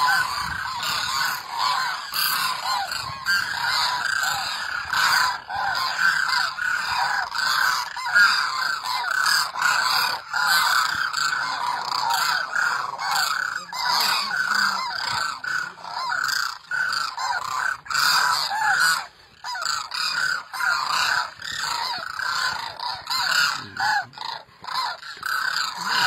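A flock of demoiselle cranes calling, many overlapping calls without a break, as the flock circles low overhead toward live decoy cranes on the ground.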